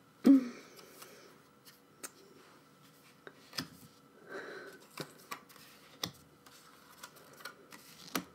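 Photo cards being handled and set down on a desk: a scattering of small clicks and light taps, with a short pitched sound just after the start and a soft brushing sound about halfway through.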